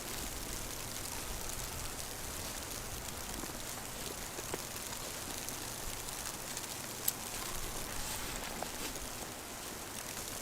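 Steady hiss of a snowstorm, with a few faint clicks and one sharper click about seven seconds in.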